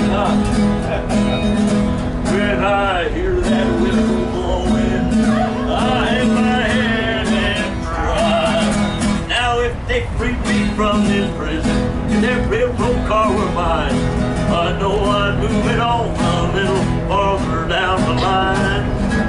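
A country song played live on an acoustic guitar, with singing.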